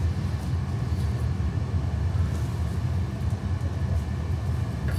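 A steady low background rumble with no distinct knocks, clicks or tool sounds.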